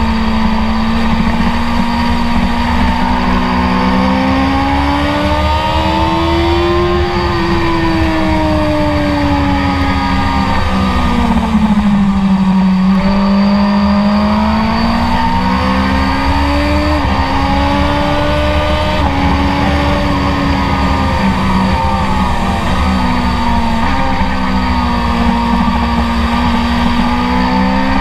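BMW S1000RR's inline-four engine running hard under the rider, its pitch rising and falling with the throttle through the corners, with a few quick steps in pitch from gear changes. Wind rushes over the bike throughout.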